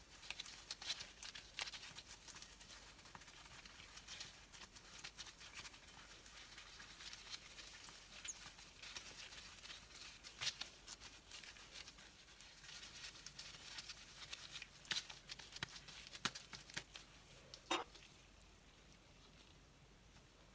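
Faint crackling and soft clicks of plastic kitchen gloves against siopao dough as hands press and stretch a dough ball into a flat round, with a brief squeak near the end.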